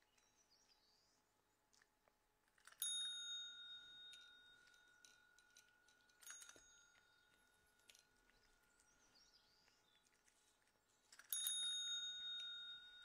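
A chrome desk service bell struck three times by a cat's paw, each tap giving a bright ring that dies away slowly; the middle ring is softer than the first and last.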